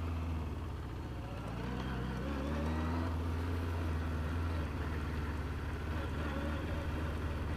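Motorcycle engine running at low revs while the bike rolls slowly, with a slight rise in pitch about two to three seconds in.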